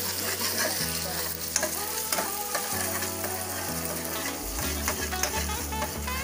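Scrambled eggs sizzling in hot oil in a frying pan, with a metal spatula scraping and tapping against the pan as they are stirred.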